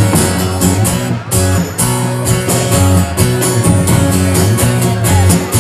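Live band playing an instrumental passage with no vocals: strummed acoustic-electric guitar and electric bass over a steady beat.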